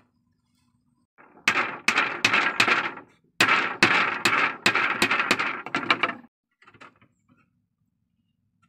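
Hatchet striking thin wooden slats on a bamboo bed frame: quick sharp blows about three a second, in two runs with a brief pause between, then a few faint knocks.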